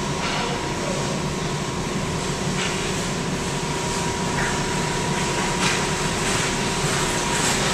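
Steady mechanical hum and rush of an ice rink's ventilation machinery, with a thin steady high tone running through it.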